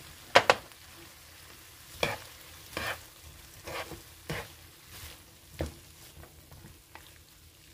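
A cooking utensil stirring and tossing stir-fried squid and vegetables in a frying pan over a faint sizzle. It clacks sharply against the pan twice about half a second in, then knocks and scrapes every half second or so, while the sesame oil and sesame salt are mixed in at the finish.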